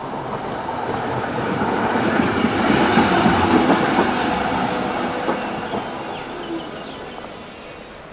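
A-class electric tram rolling past on the rails, its running noise growing louder to a peak about three seconds in, then fading as it slows at the platform.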